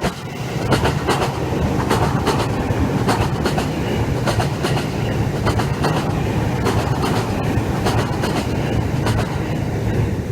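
Chuo Line train running on the track: a steady low rumble with repeated sharp clicks, often in close pairs, as the wheels pass over rail joints.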